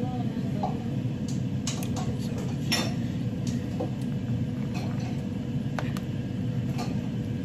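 Metal fork clicking and scraping against a plastic food container as food is moved about in it: scattered light clicks, spaced irregularly about half a second to a second apart, over a steady low background hum.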